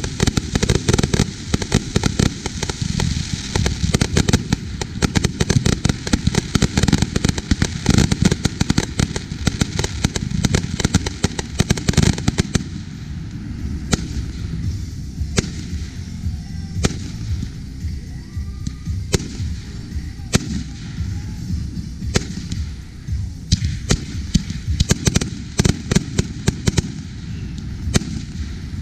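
Multi-shot consumer firework cake firing: a dense, rapid string of shots and crackling bursts for about the first twelve seconds, then single shots roughly every second, with a quicker flurry near the end.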